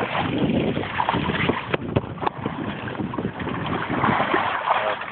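Water splashing and sloshing against the boat's side as a hooked blue shark thrashes at the surface, with wind buffeting the microphone. A few sharp knocks come near the middle.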